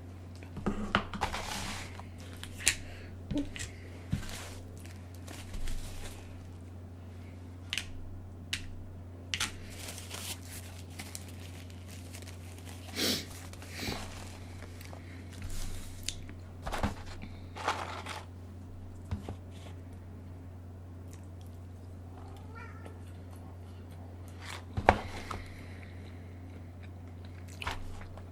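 Close-miked eating sounds: chewing and crunching with scattered short mouth clicks and smacks, a few of them sharper and louder, over a steady low hum.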